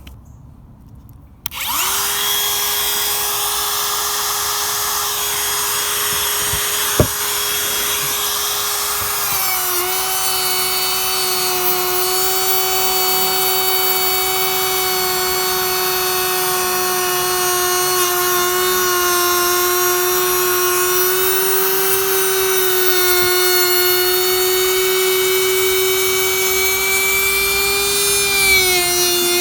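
Electric wood router fitted with a 3/8-inch carbide round-over bit, switching on about a second and a half in and running with a steady high whine. About nine seconds in the pitch dips slightly as the bit bites into the 4x4, and it keeps cutting at that lower pitch, with one sharp click a little before.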